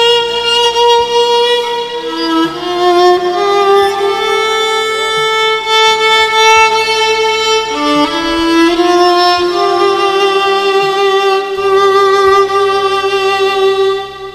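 Solo violin playing a slow melody of long bowed notes over low held accompaniment notes. The playing drops off right at the end.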